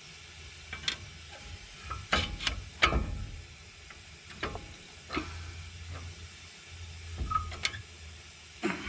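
Scattered metal clicks and knocks of hand tools working on a pickup truck's front hub assembly, a few single strikes with a short flurry about two to three seconds in, over a faint low hum.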